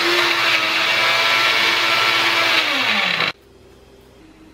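Electric kitchen mixer grinder running with a wet chutney of hog plum and red chillies in its small jar, a steady high motor whine. About three seconds in it is switched off and the whine drops in pitch and stops.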